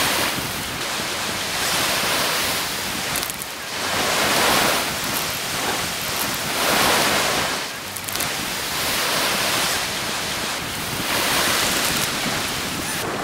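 Small waves breaking and washing up a sandy beach. The surf swells and eases about every two seconds.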